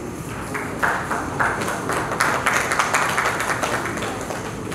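Audience applauding, a dense patter of clapping that starts about a second in and eases off near the end.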